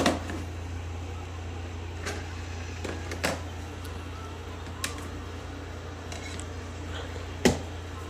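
Steady low hum with a few short, sharp clicks and knocks scattered through it, the loudest one near the end.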